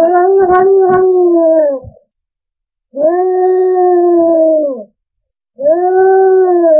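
Domestic cat yowling: three long, drawn-out calls of about two seconds each at a nearly steady pitch, with short pauses between them.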